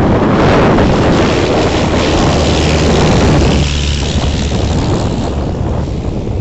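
Full-scale Cub light aircraft's 65-horsepower engine running as it passes in a low flyby, loudest through the first half and dropping off sharply about three and a half seconds in as the plane moves away. Heavy wind noise on the microphone.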